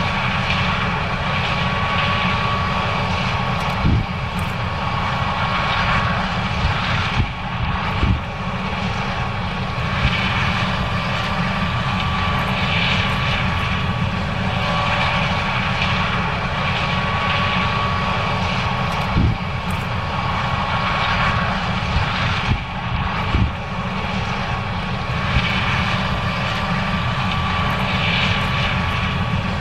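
John Deere S670 combine running steadily while harvesting corn: a continuous engine and machinery drone with a faint steady whine. Four brief knocks come through, about 4, 8, 19 and 23 seconds in.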